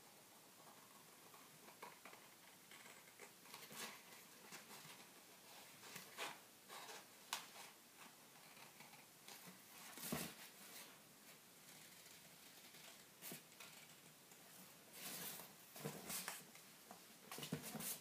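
Faint, scattered rustling of paper and card with scissor snips as a paper template is cut out and handled. A louder paper rustle comes about ten seconds in, and a few more near the end.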